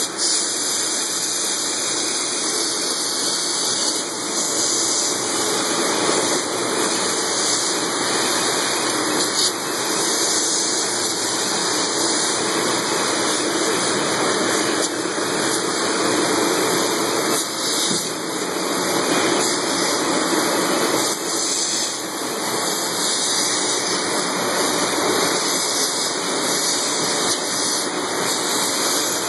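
Water gushing and splashing steadily in an aloe leaf washing line: recirculating, churning water in the immersion washer tank and water spray jets over the brush rollers.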